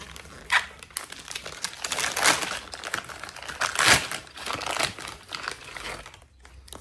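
Crinkly packaging being handled and unwrapped: irregular crackling and rustling, loudest in two bursts about two and four seconds in.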